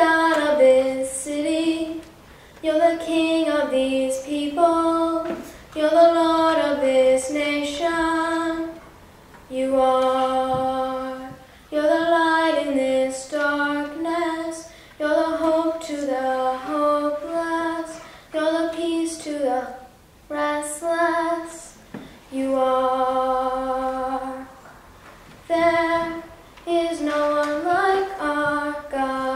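A girl singing solo and unaccompanied, a slow melody in short phrases of about two seconds each, with breaths between them.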